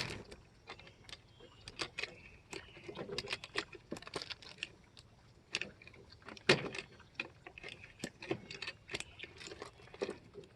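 9mm cartridges being pressed one at a time into a 34-round Glock-pattern magazine with a Maglula-style speed loader: a run of irregular small metallic clicks and rattles, the sharpest about six and a half seconds in.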